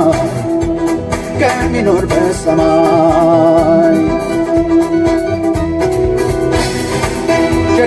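A song: a voice singing long, wavering notes over keyboard and a steady beat.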